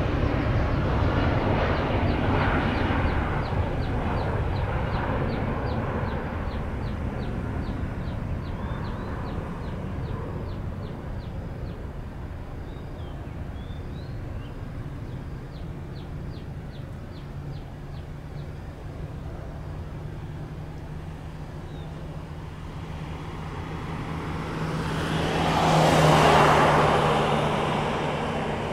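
Departing jet airliner's engine noise fading away as it climbs out after take-off. Near the end a second, nearer pass swells to a peak and fades quickly, over a steady low hum.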